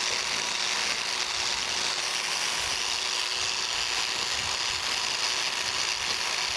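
Biax electric power scraper running steadily, its reciprocating blade rasping across the metal of a dovetail in a rough cross-hatching pass. A steady, even sound with a constant hum underneath.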